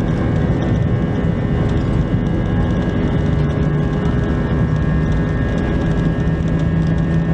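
Airbus A320's IAE V2500 turbofan engines running at high takeoff thrust, heard from inside the cabin: a steady loud rumble carrying several steady whining tones, with a low hum that strengthens about three and a half seconds in.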